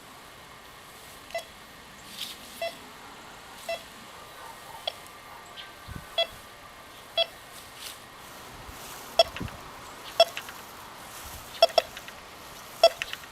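Bounty Hunter Tracker IV metal detector giving about a dozen short, mid-pitched beeps at irregular intervals, a few of them in quick pairs, as its search coil passes over buried metal such as nails in the ground.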